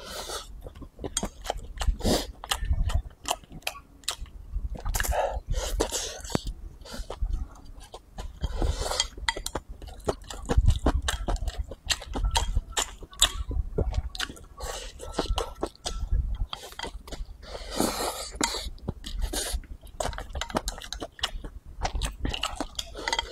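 Close-miked eating: wooden chopsticks click and scrape against a ceramic bowl as rice is pushed into the mouth from the rim, with chewing and mouth sounds. Several louder noisy bursts come as he sucks food in from the bowl.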